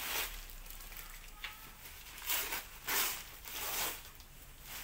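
Paper parcel wrapping being torn open by hand: about four short ripping and crinkling sounds, the louder three in the second half.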